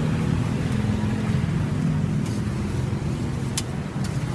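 Steady low engine rumble, with a few sharp metal clicks from about two seconds in.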